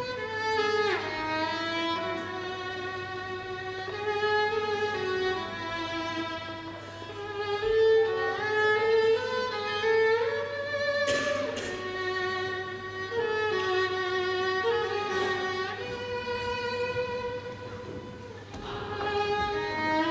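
Solo violin playing a slow melody of long held notes, with a downward slide about a second in.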